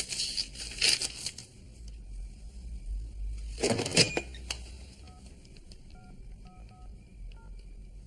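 Paper rustling as a checkbook is handled, with a louder handling rustle about four seconds in. Then a cordless phone's touch-tone keypad beeps as a number is dialed, about six key presses in the last three seconds.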